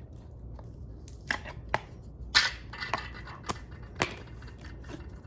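A sealed pack holding a new pad on a cardboard backing is cut and torn open with a knife: a string of separate scrapes, clicks and crackles, the loudest about two and a half seconds in.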